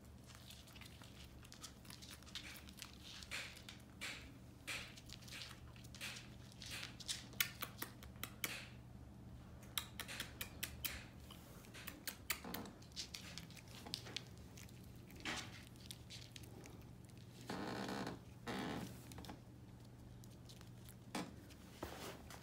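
Papillon puppies' and a border collie's claws clicking and scratching on a wooden floor and rug as they play: a scatter of quick irregular ticks and scrapes, with a denser rustling scuffle lasting about a second roughly three quarters of the way through.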